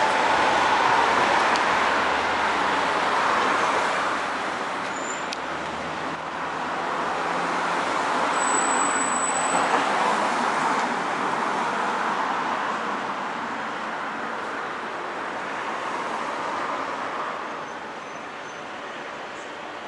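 Road traffic noise: a continuous wash of passing vehicles that swells and ebbs several times and eases off near the end.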